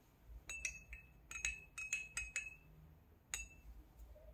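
A small glass tumbler of water clinking as turmeric powder is stirred into it: the stirrer taps the glass about ten times in two seconds, each tap ringing briefly at the same pitch, then once more about a second later.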